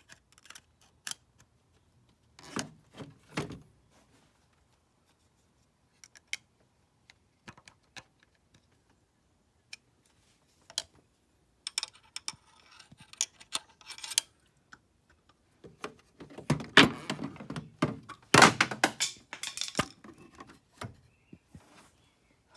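Irregular knocks, clicks and rubbing noises of things being handled, with quiet gaps between them and the loudest cluster of knocks about three-quarters of the way through; no engine is running.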